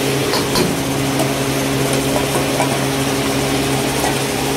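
Chicken and vegetables frying in a steel wok, sizzling over a steady motor hum, with a couple of sharp ladle clinks against the wok about half a second in.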